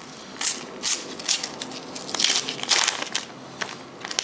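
Panini sticker packets and their thin wrappers crinkling as they are handled, with the stickers being shuffled: a run of short crackles, loudest in the middle.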